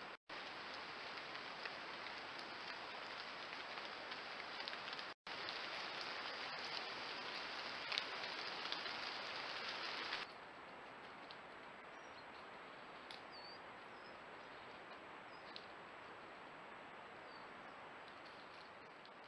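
Steady hiss of forest ambience through a camera trap's microphone, cutting out briefly twice where clips are joined. About ten seconds in it drops to a quieter hiss, with a few faint bird chirps.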